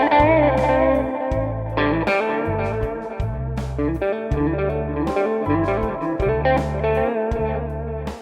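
Electric guitar picking quick single-note lines in the A minor pentatonic scale over a backing track with a repeating low bass part.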